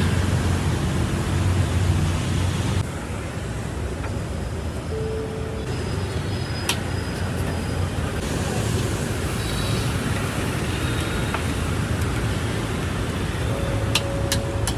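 Busy street ambience: a steady low rumble of road traffic, changing abruptly about three seconds in, with a few sharp clicks near the end.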